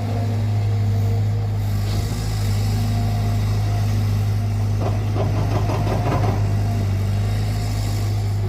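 Cat 320GC excavator's diesel engine running steadily under hydraulic load, with a steady whine. A burst of rattling clatter comes about five seconds in and lasts over a second.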